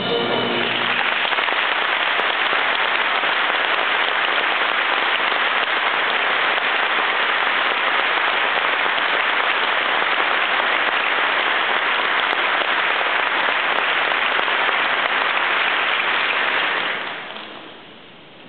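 Audience applause, rising as the last notes of the wind band fade, holding steady, then dying away near the end.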